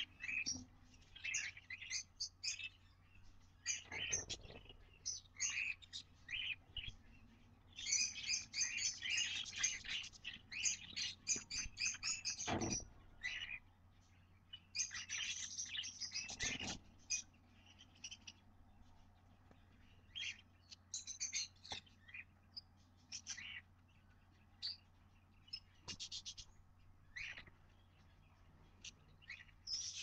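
Nestling cockatiels and budgies in a nest box giving short, high chirping begging calls in uneven bouts, densest for a couple of seconds about a third of the way in and again about halfway. A few dull thumps from birds shifting in the box sound between them.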